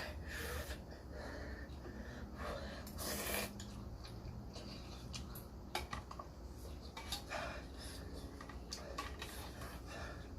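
Repeated sniffing, snorting and heavy breathing from a man whose nose is running from very spicy ramen, in short separate bursts, the loudest about three seconds in. A steady low hum from an electric fan runs underneath.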